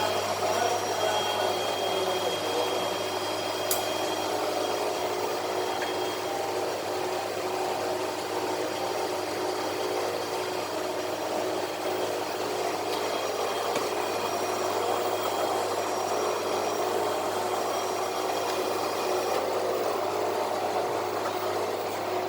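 Bank cheque-sorting (clearing) machine running: a steady mechanical hum with several steady whining tones, and a single sharp click about four seconds in.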